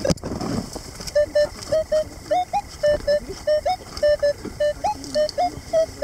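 Minelab metal detector giving a run of short target beeps, about three a second, mostly on one mid pitch with some rising chirps, as the coil is swept over a signal. The pinpointer cannot find it, and the hunters take it for a deeper target. A handling knock comes at the very start.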